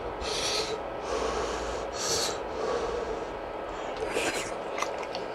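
A person eating hot fish cake soup makes three sharp, noisy intakes of breath about two seconds apart, with a few light clicks near the end.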